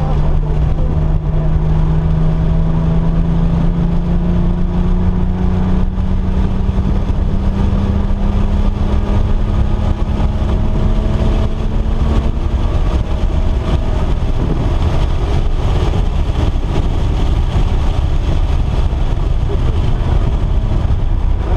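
Car engine running hard at speed over a heavy low rumble of wind and road noise, its note climbing slowly for about twelve seconds, then rougher and more uneven.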